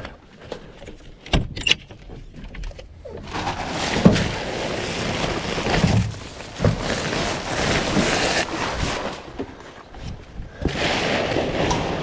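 Shrub branches rustling and crackling as they are cut and pulled out by hand, with a few sharp clicks and snaps.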